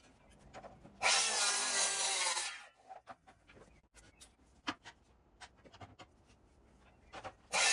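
Scraping and rubbing against green oak timber in two bursts, about a second and a half long a second in and a shorter one near the end, with light knocks and clicks in between.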